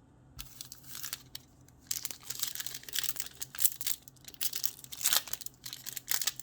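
Foil trading-card pack wrapper being crinkled and torn open by hand: a dense, crackly rustle that starts about half a second in and grows busier from about two seconds in.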